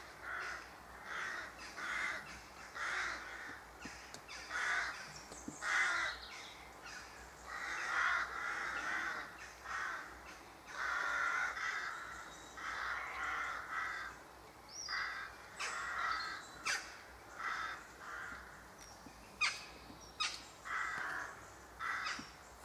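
Crows cawing over and over, short harsh calls coming every second or so. A few sharp clicks come in among the calls in the second half.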